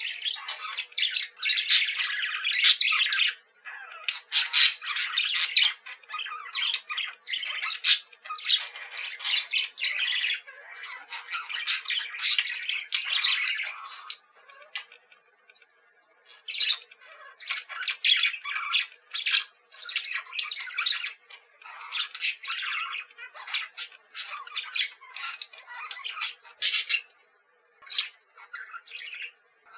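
Pet budgerigars chattering and squawking in quick, dense bursts, with a couple of short lulls.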